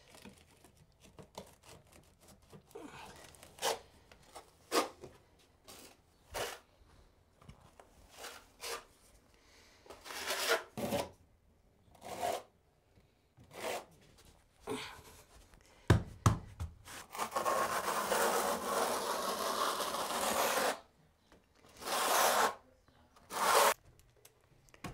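Steel V-notch trowel scraping thinset mortar across cement board in a run of short strokes, with one longer, louder scrape of several seconds past the middle.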